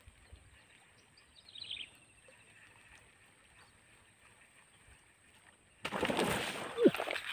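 A bird gives a short falling chirp about one and a half seconds in over quiet marsh ambience. About six seconds in comes a loud splash in the water, lasting about a second and a half and ending with a short falling tone.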